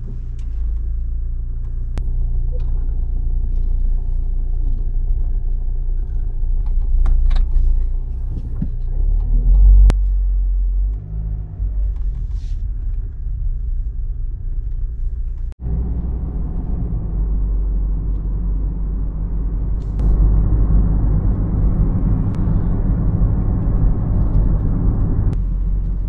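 Car cabin noise while driving: a steady low rumble of engine and road, with a few faint clicks. About two-thirds of the way in it cuts suddenly to louder, hissier road noise.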